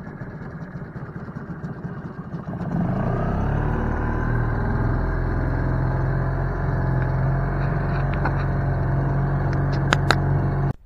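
Small boat outboard motor running. About three seconds in it is throttled up and the note gets louder, then it holds a steady drone. A few sharp clicks come near the end.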